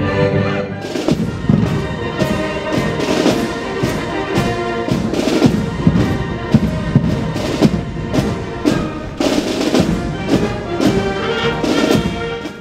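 Military band playing: brass instruments and snare drums, with sharp drum strokes over held brass notes. It cuts off abruptly at the very end.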